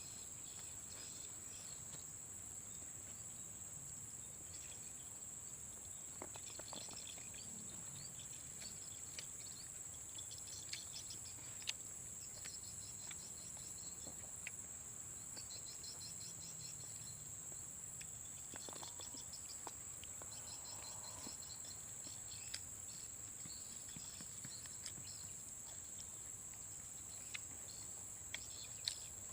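Forest insects singing: a steady high-pitched drone runs throughout, overlaid by bursts of rapid pulsing chirps. A few sharp clicks stand out, the loudest about 12 s in and near the end.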